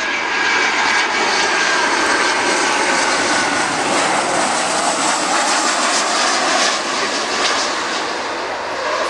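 Boeing 737-400's CFM56 turbofan engines on final approach, passing close by: a loud, steady jet rush with a whine that slowly falls in pitch over the first few seconds.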